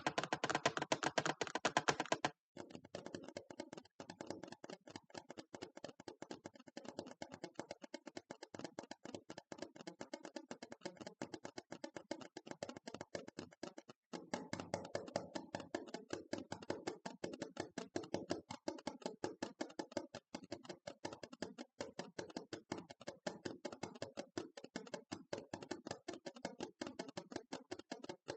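Rapid ASMR tapping, a quick run of light taps on a hard object. It breaks off briefly about two seconds in and resumes quieter, then breaks again about fourteen seconds in and comes back louder and fuller.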